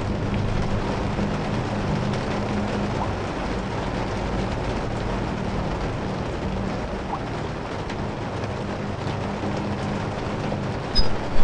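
Steady rushing noise with a low hum that fades out over the first few seconds. Sharp clicks and short falling chirps come in at the very end.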